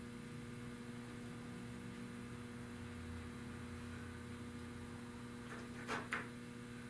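Steady low electrical hum, with two short sharp clicks about six seconds in.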